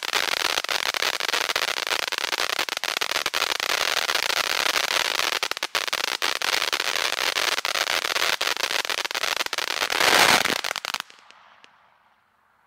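Red Rhino "Poking the Bear" ground fountain firework spraying sparks: a steady hiss packed with dense crackling. It swells louder about ten seconds in, then stops abruptly a second later as the fountain burns out, leaving only a faint fading tail.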